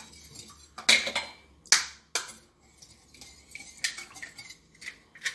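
Metal wire whisk beating eggs in a glass bowl, its wires striking the glass in a handful of sharp, irregularly spaced clinks.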